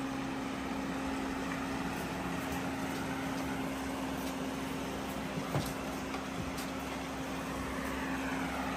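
Electric fans running with a steady hum, with a single knock about five and a half seconds in.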